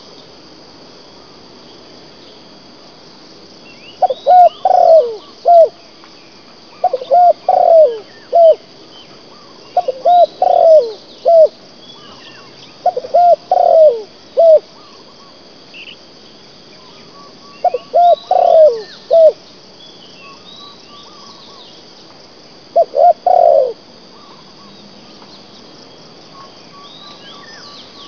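Spotted dove cooing: six phrases of three or four low coos, one every three to five seconds, with a gap of several seconds before the last. A steady high insect drone and faint chirps of small birds run underneath.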